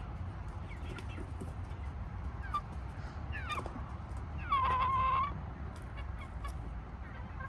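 Chickens clucking: a few short calls, one sliding downward, then a longer held squawk about four and a half seconds in, the loudest sound, over a steady low rumble.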